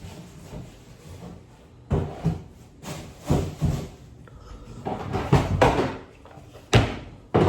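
A series of irregular knocks and thumps, like doors, lids or a wooden cupboard banging, starting about two seconds in after a quiet stretch.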